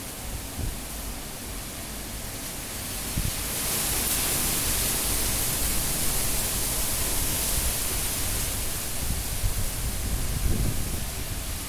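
Tropical cyclone wind blowing hard and gusting: a steady rushing hiss that swells into a stronger gust about three seconds in and stays loud, with a few short low rumbles.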